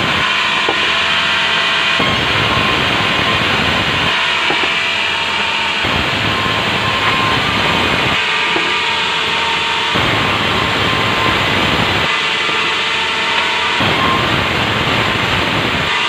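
Sawmill band saw ripping a squared timber lengthwise, the blade cutting steadily through the wood over the running machine.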